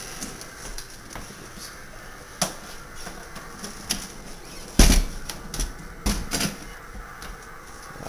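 Irregular knocks and clicks of an old refrigerator's plastic bins and shelves being handled, with the loudest knock just before the middle and a short cluster of knocks soon after.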